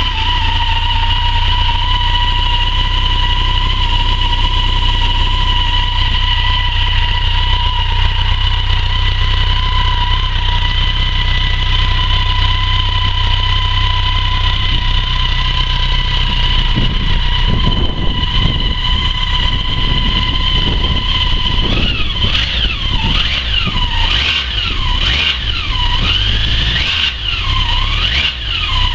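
BMW K100 motorcycle's inline-four engine idling just after starting: a steady low rumble with a steady high whine on top. Over the last several seconds the pitch rises and falls several times.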